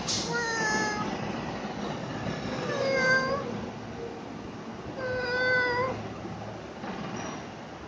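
A cat meowing three times, drawn-out meows a couple of seconds apart, over a steady background hiss.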